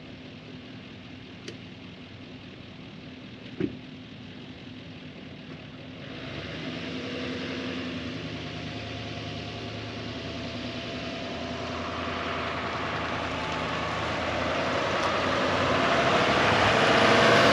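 A vehicle engine idling, growing steadily louder over the last ten seconds, with a single sharp click about four seconds in.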